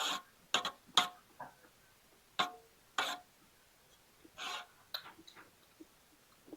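A spoon clinking against a bowl while kheer is eaten: a series of sharp clicks, some ringing briefly, with a longer scrape or slurp about four and a half seconds in.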